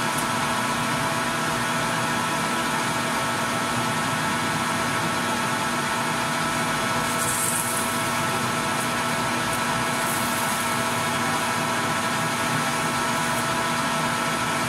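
Metal lathe running at a steady speed with the barrel spinning in its chuck, a constant motor and gear hum. About halfway through comes a brief hiss as abrasive is held against the spinning breech end of the barrel.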